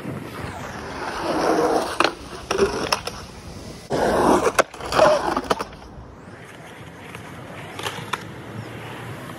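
Skateboard wheels rolling on concrete, with several sharp clacks of the board hitting the ground. The rolling is loudest from about one to six seconds in, then fainter.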